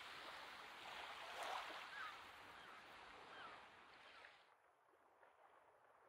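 Faint seaside ambience: a soft hiss of lapping water with a few faint, short high chirps, fading out about two-thirds of the way through to near silence.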